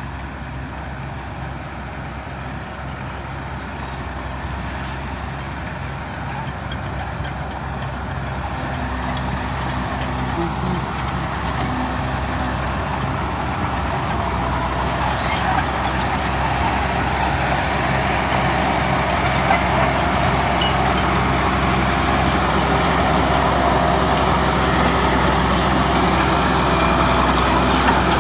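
Heavy earthmoving machine's diesel engine running steadily, growing gradually louder.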